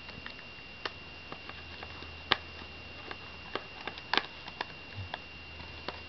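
Scattered small, sharp clicks and ticks of a jeweler's screwdriver working the tiny screws on the metal memory cover in a MacBook's battery bay, with two louder ticks near the middle.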